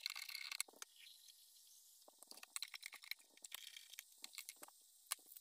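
Onions and peppers sautéing in olive oil in a stainless saucepan: a faint sizzle with scattered small crackles and pops.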